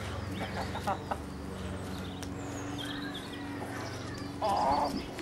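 Black Star hens clucking, with a short louder call near the end, over a steady low hum.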